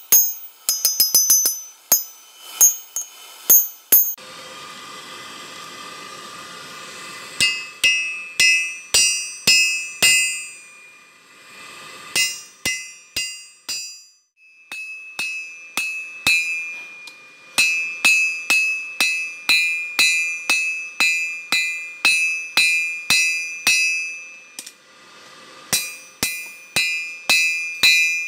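Hand hammer striking red-hot leaf-spring steel on a 180-pound anvil, in runs of blows about two a second, each ringing out and the anvil ringing on between blows. A few seconds in, the blows stop for a while and a steady hiss fills the gap.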